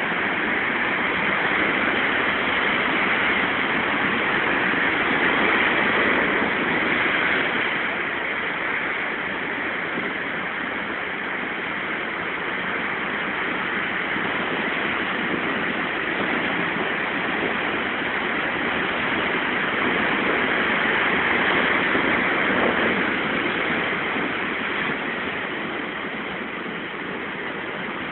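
Heavy sea surf breaking over rocks, a continuous rush of churning white water that swells louder twice and eases again.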